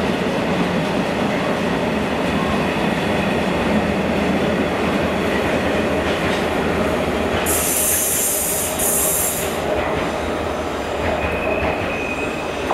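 Freight train of tank containers on flat wagons rolling past, a steady rumble and clatter of wagon wheels on the rails. Just past the middle there is a loud high hiss for about two seconds, broken once, and near the end a thin wheel squeal.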